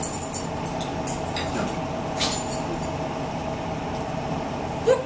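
Forks clicking against plates during a meal, a few short, sharp clinks in the first couple of seconds, over a steady background hum.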